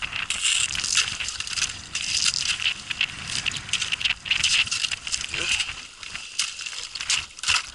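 Thin ice cracking and crunching against a boat's hull as it pushes through, a dense, irregular crackle of breaking and grinding ice.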